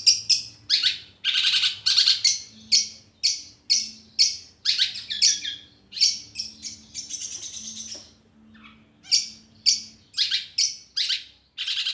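Long-tailed shrike (cendet) calling: a quick run of harsh, raspy calls, about two to three a second, with a longer buzzy call around six to seven seconds in and a brief lull after it.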